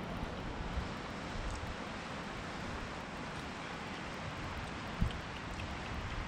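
Steady wind noise buffeting the microphone outdoors, with a single low thump about five seconds in.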